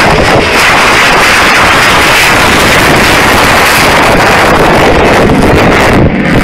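Loud, steady jet noise from a B-1B Lancer bomber's four turbofan engines as it flies low past and climbs away, the roar overloading the microphone like wind noise.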